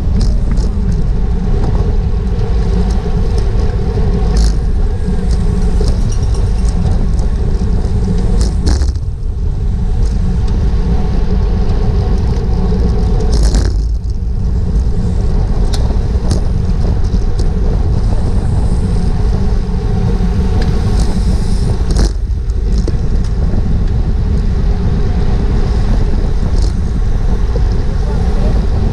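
Steady wind rush over a bike-mounted action camera's microphone while riding at race speed, with a steady hum underneath and occasional clicks.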